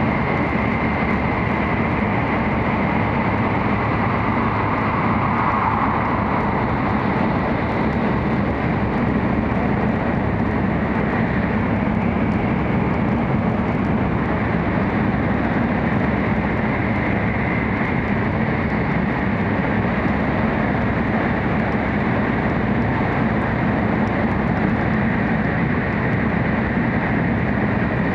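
Interior running noise of an N700-series Shinkansen train at speed, heard from inside a passenger car: a steady rushing rumble with a faint high tone over it.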